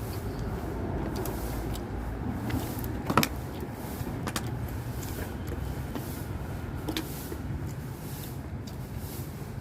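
A few sharp clicks, like cutlery tapping on plates, the loudest about three seconds in, over a steady low rumble.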